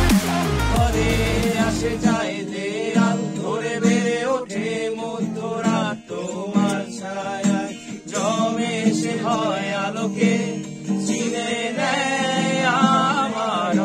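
A deep, falling bass from an electronic dance track ends about two seconds in. Then a man sings to an acoustic guitar played beside him.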